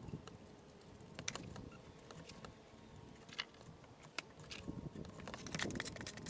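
Scattered sharp clicks and knocks of stone and tools being handled while building a stone arch, coming thicker toward the end.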